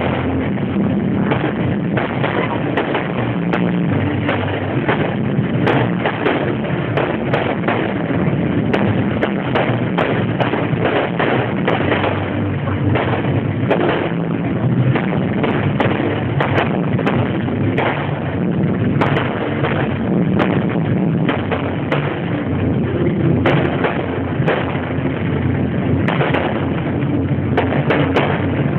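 Fireworks display: aerial shells and rockets bursting in a rapid, continuous series of bangs and crackles.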